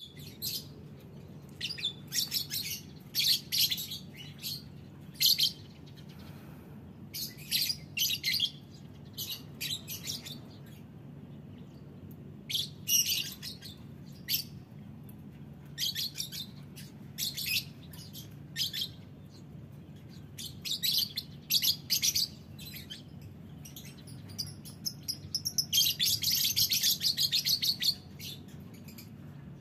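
Several caged lovebirds giving short, shrill chirps in clusters every second or two, breaking into a dense run of rapid chirping a few seconds before the end. A faint steady low hum runs underneath.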